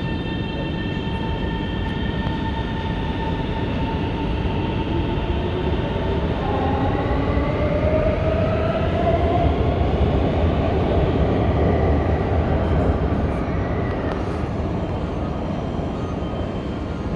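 Shanghai Metro Line 1 01A04-series electric train departing the platform: a steady electric hum, then its traction motors whine upward in pitch as it accelerates away, loudest partway through, with a low rumble that fades as the train leaves.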